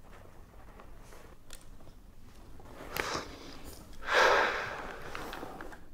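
A man breathes out once, sharply, about four seconds in, blowing out a draw of cigarette smoke. Faint small clicks and rustles come before it, one sharper click about three seconds in.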